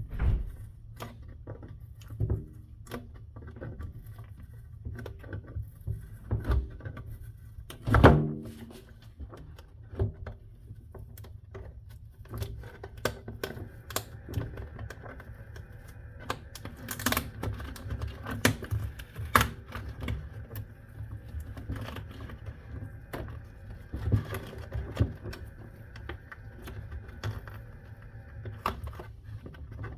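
Griptape being peeled by hand off a skateboard deck: a steady run of small irregular clicks and crackles as the adhesive lets go and fingernails work at the edge, with a louder knock about eight seconds in.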